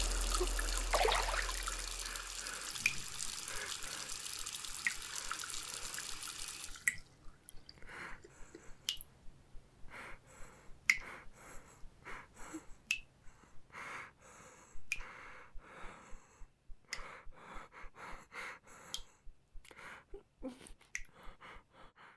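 Water dripping into a sink, irregular drops a few times a second. Before the dripping, a steady hiss stops abruptly about seven seconds in.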